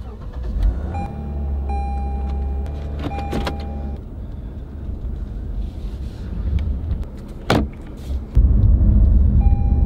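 Low rumble inside a Lexus car cabin. Held electronic tones sound about a second in, again around three seconds, and once more near the end. A sharp click comes a little past halfway, and the low rumble grows much louder for the last second and a half.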